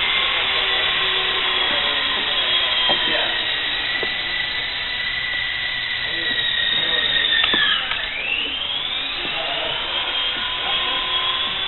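Small electric radio-control helicopter in flight: a high, steady motor and rotor whine. The pitch dips sharply about two-thirds of the way through and climbs back as the throttle changes.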